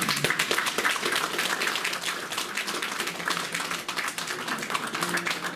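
Small audience applauding, a dense patter of hand claps.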